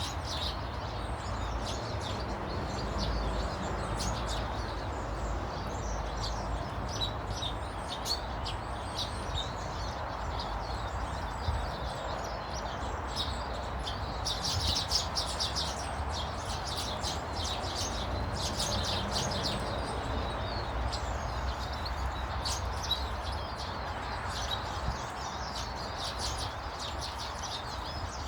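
Small birds chirping and twittering with many short high calls, busiest about halfway through, over a steady low background noise.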